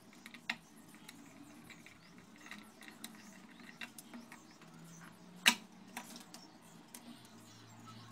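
Scattered small clicks and taps of a screwdriver and a hard drive's metal parts being handled on a tabletop as the drive is taken apart. There is one sharp knock about five and a half seconds in, the loudest sound.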